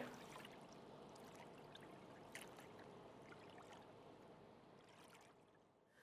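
Faint trickling, lapping harbour water, fading out near the end.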